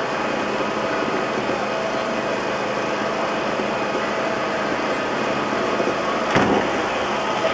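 Gas Gas two-stroke trial motorcycle engine running steadily at low revs while the bike is balanced, then one loud thump about six seconds in as the bike lands from a drop.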